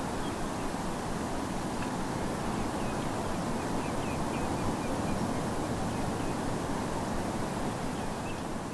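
Steady low wash of distant North Sea surf, with a run of faint, short high calls from distant oystercatchers through the middle and one more near the end.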